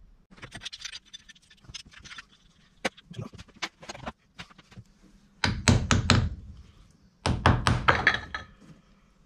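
Hammer knocking on the top of a Coventry Climax engine, in two quick runs of several blows, after a few seconds of small metallic clicks from tools being handled.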